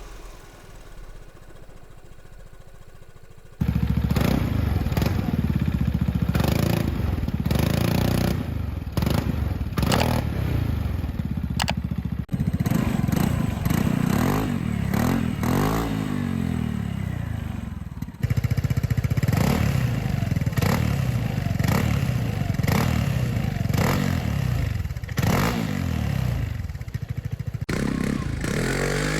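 Vespa GTS 300's single-cylinder four-stroke engine being revved through aftermarket exhausts, the pitch rising and falling again and again in quick blips. It is quieter for the first few seconds, then much louder from about three and a half seconds in, with abrupt changes in tone where one exhaust's recording gives way to the next.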